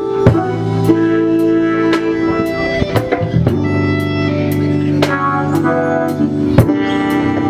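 Live band playing an instrumental passage: held chords on guitar and keyboard over a steady drum-kit beat.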